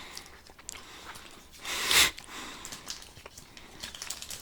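Small toy packaging being handled: light rustling and small clicks, with one louder, hissing rustle about two seconds in.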